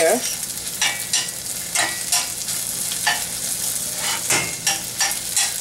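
Chopped onion and garlic sizzling in butter in a stainless steel saucepan, sweating over the heat, with a utensil clinking and scraping against the pan at irregular moments as the pieces are stirred.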